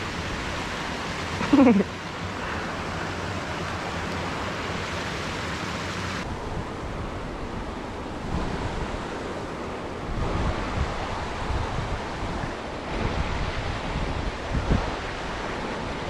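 Steady rush of a small creek running over rocks and little cascades, with a short shout that falls in pitch about a second and a half in. In the second half, low rumbling bumps of wind on the microphone come and go over the water.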